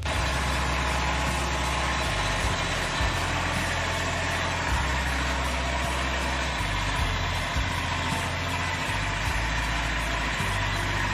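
Wood-Mizer portable band sawmill running steadily, its engine droning under an even hiss as it saws a cherry log.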